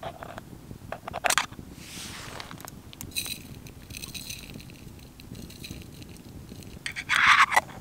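Small metal container being handled and tipped over a steel camp mug: sharp metallic clicks, a thin ringing rustle, and a louder brief rattle near the end.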